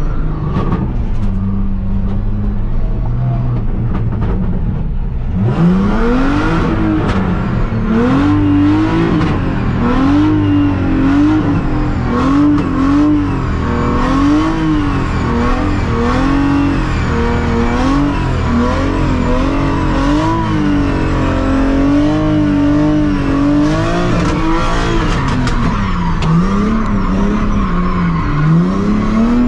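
Drift car's engine revving, its pitch rising and falling about once a second as the throttle is worked, with tyre noise. It gets much louder about five seconds in.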